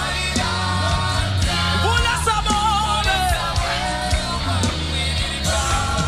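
Live gospel praise-and-worship music: a woman leads the singing, with a group of backing singers, over a band with a steady heavy bass.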